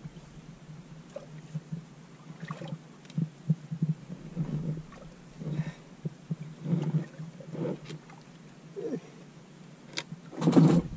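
Water lapping against the hull of a small wooden fishing boat: irregular soft slaps, a few each second, with a louder stretch near the end.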